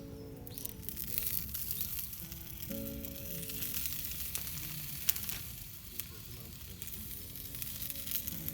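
Food sizzling in a skillet over a campfire: a steady frying hiss with scattered sharp pops and crackles. Soft background music plays a few held notes over it.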